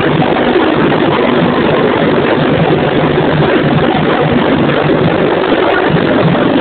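Samba school drum section (bateria) playing loudly, the drumming blurred into a dense, steady din.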